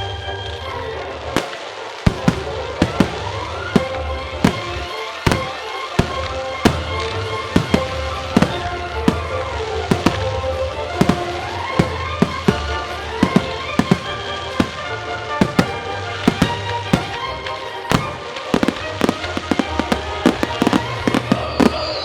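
Aerial firework shells bursting one after another, dozens of sharp bangs that come thicker in the second half, over loud music played for the pyromusical show.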